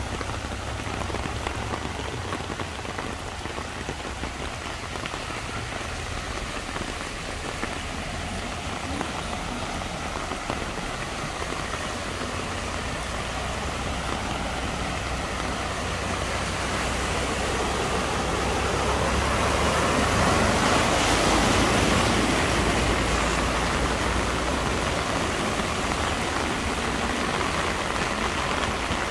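Heavy rain pouring onto a flooded road, a steady hiss of rain and water, with the swish of cars driving slowly through the floodwater; the sound swells louder for a few seconds about two-thirds of the way through.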